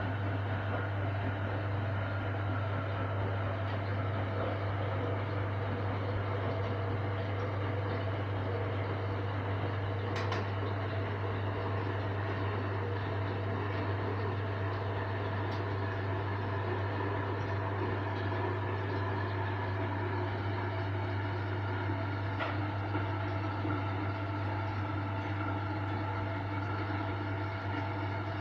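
Hoover Electronic Automatic de luxe washing machine spinning: a steady motor hum with constant tones above it and a few faint clicks.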